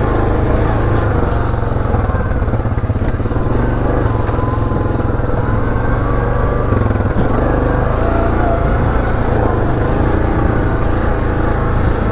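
ATV engine running steadily as the four-wheeler is ridden along a dirt trail.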